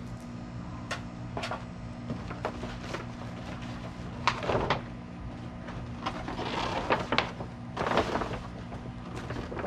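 Stiff black plastic pond liner being unfolded and shaken out, rustling and crinkling in three swishes about four, six and a half and eight seconds in, with scattered light clicks. A steady low hum runs underneath.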